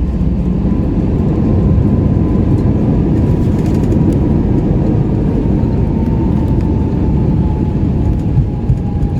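Airbus A321 cabin during the landing rollout: a loud, steady rumble from the wheels on the runway and the engines, with a faint whine slowly dropping in pitch.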